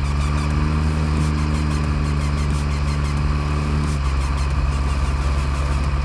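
The six-cylinder 7.1-litre Deutz diesel engine of a Deutz Fahr Agrotron MK3 150 tractor, heard on board, runs steadily while the tractor pushes a front snowplough along a snowy road. Its tone changes a little about four seconds in.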